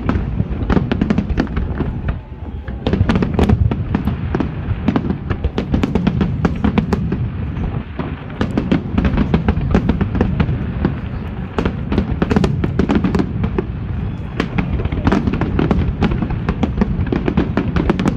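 Fireworks display: a rapid, near-continuous barrage of bangs and crackles from many aerial shells bursting together, with a brief lull about two seconds in.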